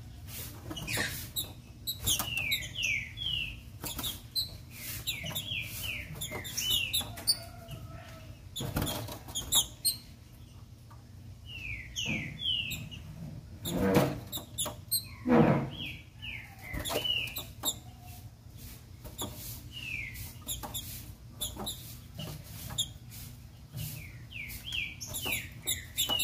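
Female green-winged saltator (trinca-ferro) calling: groups of three or four short falling notes, repeated every few seconds. Between the calls come many clicks, knocks and flutters as the bird hops about its cage, the loudest two about halfway through.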